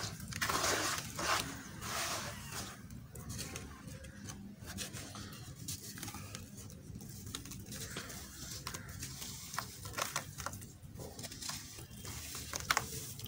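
Hands crumbling lumps of gritty red dirt into a tub of muddy water: sloshing and swishing in the water, with scattered gritty crackles as the lumps break apart. It is busiest in the first couple of seconds, and there is a sharp click near the end.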